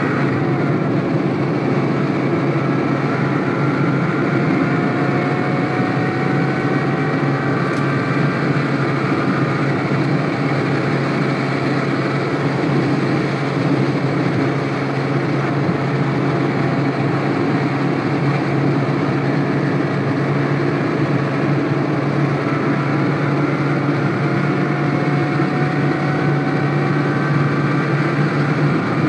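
Steady in-cabin noise of a car cruising at highway speed, about 130 to 140 km/h: a low engine hum under tyre and road rumble, with faint tones drifting slowly up and down in pitch.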